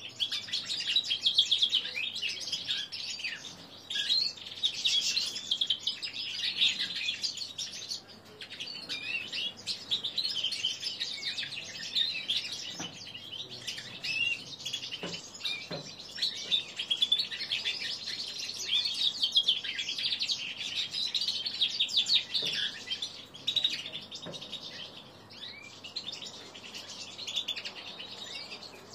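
Three-month-old male linnet × canary hybrid in subsong: a long, rambling, nearly continuous twitter of chirps and trills with short breaks. This is the unformed practice song of a young bird still learning to sing.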